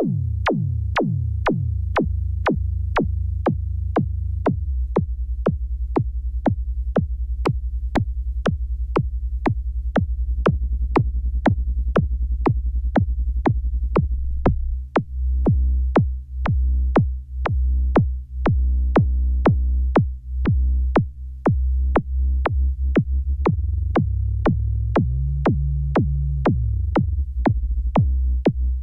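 Behringer Neutron analog synthesizer playing a deep, droning bass under a steady ticking drum-machine beat, about two ticks a second. About halfway through the bass starts pulsing in rhythm, and near the end a higher synth line steps up and back down.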